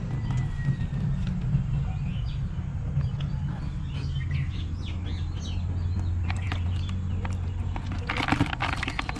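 Outdoor ambience with birds chirping over a steady low hum, then a short burst of splashing and dripping about eight seconds in as a small fish slips out of a papaya into a bucket of water.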